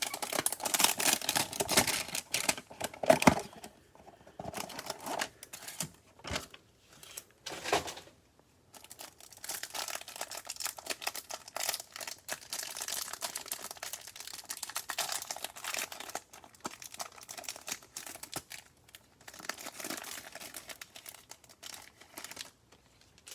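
Trading-card hanger box being torn open and its packaging crinkled and handled, in irregular stretches of crackling and tearing, with a busy stretch at the start and a long one in the middle.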